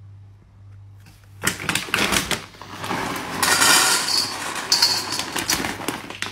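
Dry dog kibble poured from a bag into an empty stainless steel bowl: a dense rattle of pellets hitting metal and each other, starting about a second and a half in and at its loudest in the middle.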